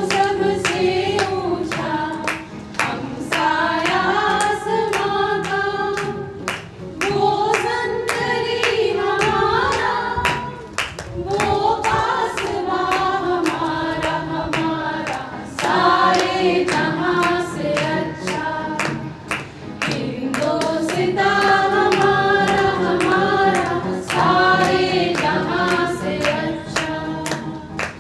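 A group of women singing a song together in unison, in phrases a few seconds long, with a steady beat of sharp taps behind the voices.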